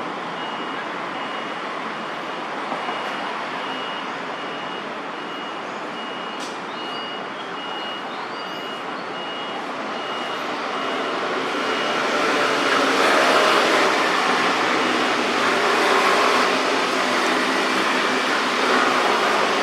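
Steady city traffic noise that swells louder about ten seconds in, with a high tone repeating at an even pace through the first half.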